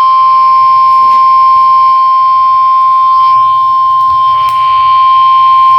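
NOAA Weather Radio 1050 Hz warning alarm tone: one loud, steady single-pitched tone held without a break. It is the attention signal sent ahead of a warning broadcast, here a severe thunderstorm warning.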